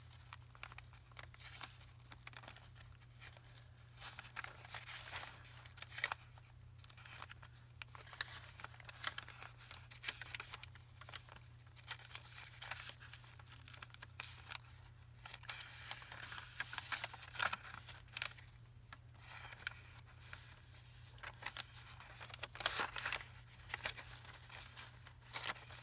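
Paper rustling and crinkling as the pages of a bulky handmade paper journal are handled and leafed through, with scattered light clicks and taps, over a faint steady low hum.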